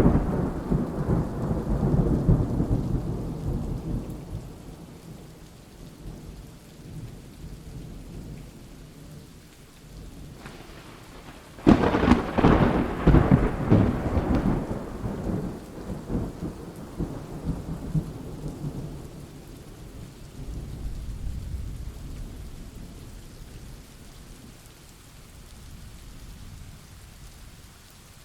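Thunderstorm: steady rain, with two peals of thunder. The first is already rumbling and fades over the first few seconds; about twelve seconds in a sudden sharp crack breaks out and rolls on in long, deep rumbles that slowly die away.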